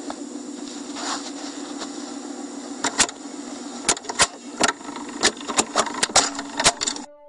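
A computer mouse scroll wheel clicking in quick irregular flicks, about two sharp clicks a second from a few seconds in, over a steady electrical hum and hiss that cuts off abruptly near the end.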